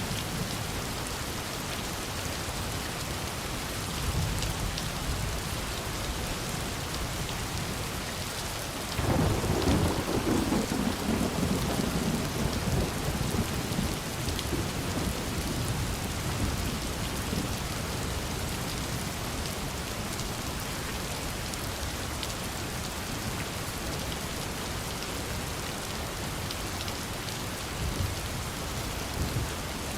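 Steady rain falling, with thunder: a low rumble a few seconds in, then a louder thunderclap about nine seconds in that rumbles away over several seconds, and a fainter rumble near the end.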